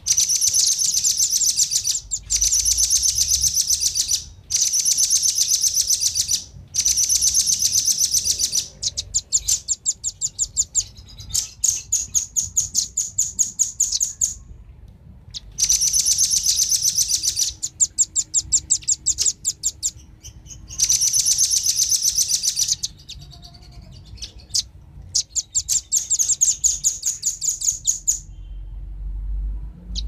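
Velvet-fronted nuthatches calling: fast, high, chattering trills in bursts of about two seconds, some breaking into looser runs of separate notes, with short pauses between.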